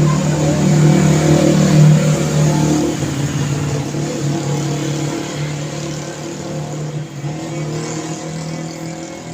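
Road traffic with one motor vehicle's engine humming close by over tyre and road noise. It is loudest about two seconds in, then slowly fades as the vehicle moves away.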